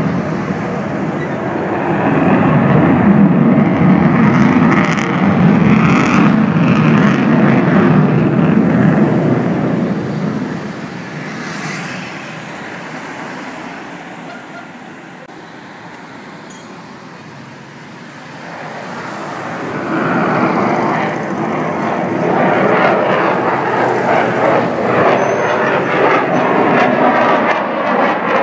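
Jet noise of an F-16 fighter's single afterburning turbofan during a display pass: loud for about the first ten seconds, fading away as the jet moves off, then building again from about twenty seconds in as it comes back.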